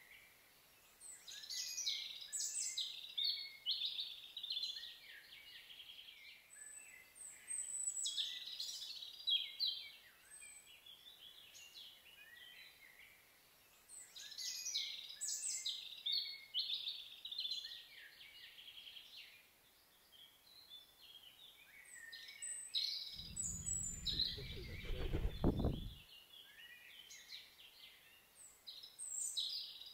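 Songbirds singing: bursts of rapid high chirps and trills that come and go every six or seven seconds. A low rumble lasts about three seconds near the end.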